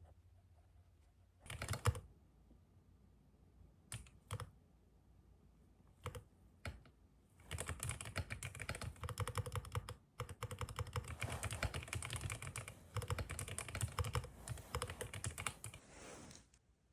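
Typing on a computer keyboard: a few scattered key presses, then a fast run of keystrokes from about seven seconds in, with a short break near ten seconds.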